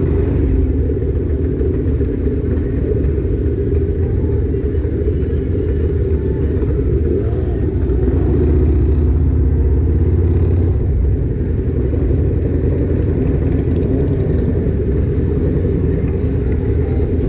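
Chopper motorcycle's engine running at a slow crawl in traffic: a steady low rumble that swells a little about halfway through.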